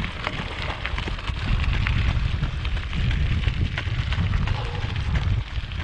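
Wind buffeting the microphone of a camera carried by a running person: an uneven low rumble with scattered small crackles. It grows stronger about a second and a half in and eases near the end.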